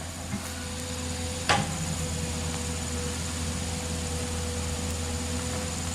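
Hyundai 220LC-9S excavator's diesel engine running steadily with a low hum, with one sharp knock about a second and a half in.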